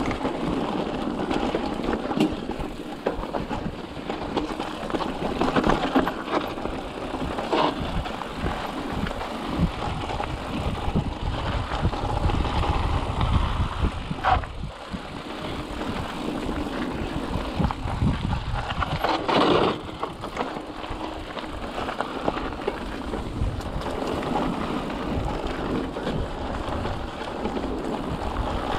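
Mountain bike rolling along a dirt trail: steady tyre and trail noise with rattles and sharp knocks over bumps, and wind rumbling on the microphone.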